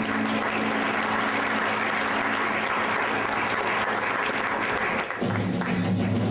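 Audience applauding over the low, steady ring of a large gong just struck to open the concert. The gong's tone stops about five seconds in, and other steady low notes start near the end.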